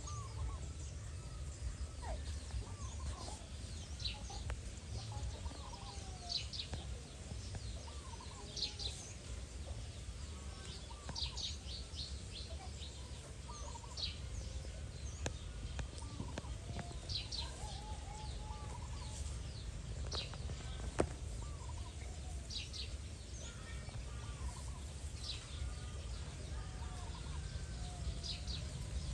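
Birds calling: clusters of short high chirps every second or two, with softer, lower sliding calls between them, over a steady low rumble.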